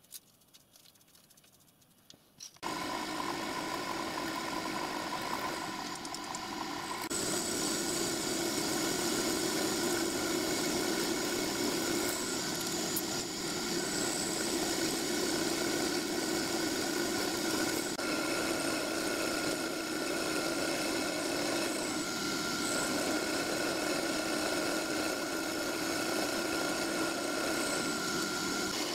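Near silence for the first two and a half seconds, then a milling machine running steadily as a small end mill cuts a slot in a metal coupler block, with a constant motor whine. It gets a little louder about seven seconds in.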